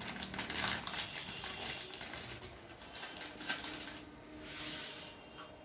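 Crinkling and crackling of a small plastic Lay's potato chip packet as it is handled and pulled open by hand, a run of quick sharp crackles.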